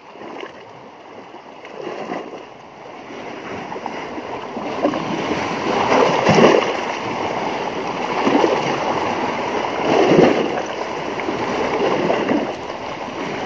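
Seawater sloshing and splashing against the rocks at the water's edge, the wash surging every couple of seconds and building louder after the first few seconds.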